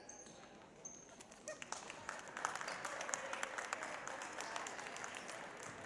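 Scattered applause and clapping from a small crowd of spectators, building about a second in and dying away near the end.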